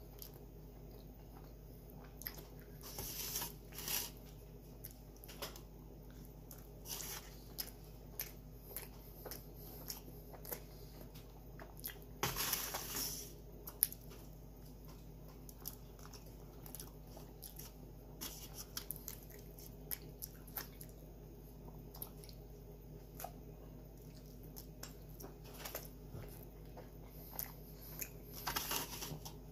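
Close-miked biting and chewing of a tuna sandwich on soft white bread: wet mouth sounds with scattered small clicks, coming in irregular bursts, over a steady low hum.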